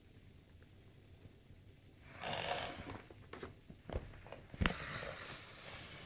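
A young man snoring heavily in a drunken sleep. Two long snores come about two seconds in and again about two and a half seconds later, with a couple of short knocks between them.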